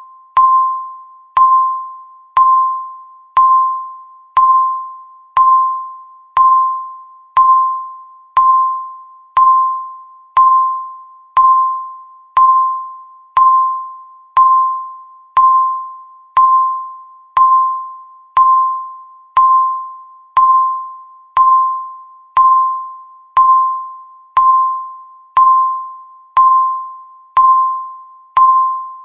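Countdown timer beeping once every second, each beep a short single-pitched electronic tone that starts sharply and fades away.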